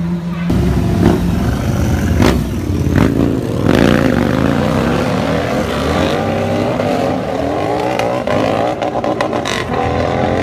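Sports-car engines revving. Sharp exhaust cracks come in the first few seconds, then the engine notes rise and fall as the cars accelerate, with a run of crackles near the end.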